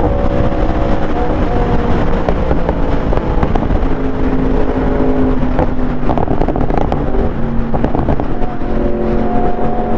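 Yamaha R1 sport bike's inline-four engine running at a steady highway cruise, its pitch nearly even, under a heavy rush of wind and road noise from riding at speed.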